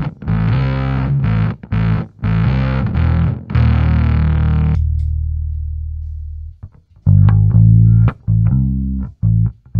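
Bass guitar played through a Fender Blender fuzz pedal: a run of fuzzed notes with a buzzy top. About halfway the buzzy top cuts off suddenly, leaving one low note ringing and fading. Short, cleaner-sounding notes follow.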